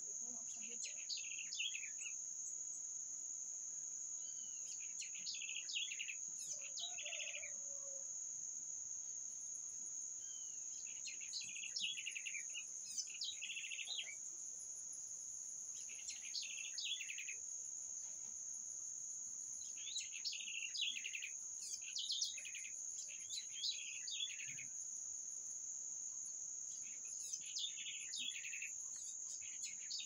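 Birds singing short, chirping phrases every two to four seconds over a steady high-pitched insect drone; a second, higher insect buzz joins about nine seconds in.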